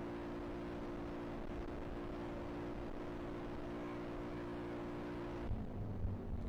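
2008 Suzuki KingQuad 750 ATV's single-cylinder engine running flat out at a steady high pitch during a top-speed run, with wind and road noise. About five and a half seconds in, the engine note drops away as the throttle comes off, and a few low thumps follow.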